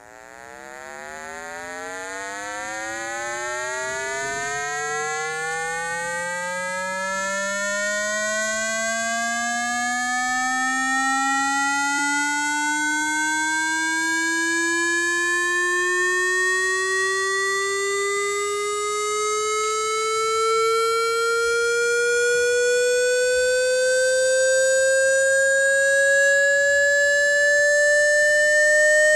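A synthetic buzzy tone with many overtones, fading in over the first few seconds and then gliding slowly and steadily upward in pitch from a low hum to a mid tone. It is a speaker water-ejection sweep, played loud to vibrate water out of a phone or earphone speaker.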